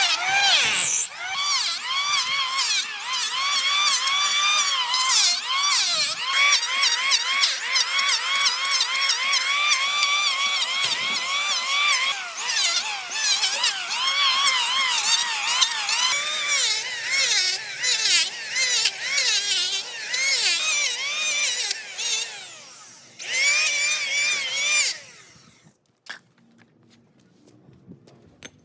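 Handheld electric power tool working wood, its motor whine rising and falling in pitch over and over as the load changes. It stops near the end, followed by a few sharp knocks.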